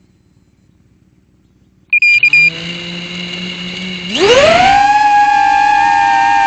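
3-inch FPV quadcopter powering up: a few short, loud high beeps about two seconds in, then the brushless motors spinning at a low idle hum. About four seconds in, the throttle comes up and the motors rise in a fast whine to a steady high whine as the drone lifts off and hovers.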